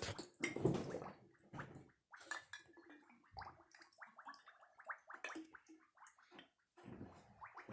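Floodwater sloshing and gurgling in a flooded basement: a run of short, irregular splashes, faint throughout.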